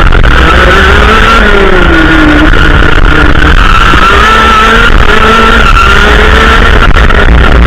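Racing kart's two-stroke engine heard from onboard, very loud, its pitch rising and falling as the kart accelerates and slows through the corners, over a heavy low rumble of wind on the microphone.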